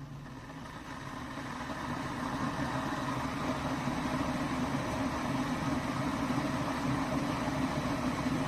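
Stainless steel electric kettle heating water, a rumbling hiss from the element that builds over the first couple of seconds and then holds steady.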